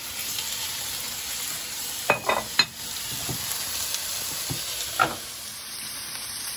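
Diced white fish, onion and zucchini sizzling steadily in oil in a frying pan, with a few sharp knocks of a wooden spatula about two seconds in and one more about five seconds in.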